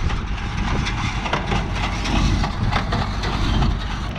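A Renault tractor's engine running under load as it pulls a New Holland 68 small square baler, with irregular knocks and crunches from the baler packing hay.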